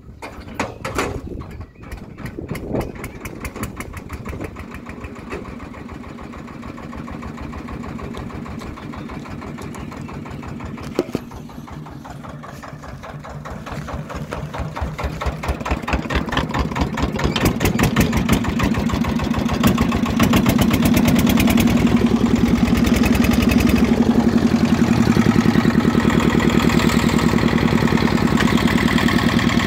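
Petter diesel engine of a Benford 15cwt mini dumper starting for the first time in years. It fires with slow, uneven beats at first, settles into running, then speeds up and gets louder from about halfway in, running fast and steady near the end.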